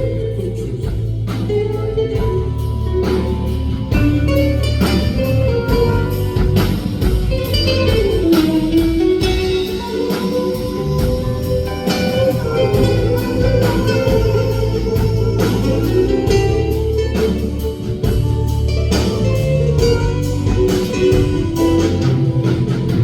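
Live band playing an instrumental song introduction, with a steady drum beat under a bass line and sustained melody.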